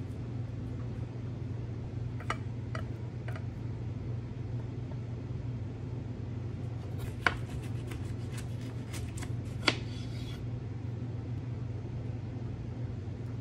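Kitchen knife cutting fruit on a cutting board: a few light taps of the blade on the board, then a run of quick clicks and taps lasting about three seconds in the middle. A steady low hum lies under it.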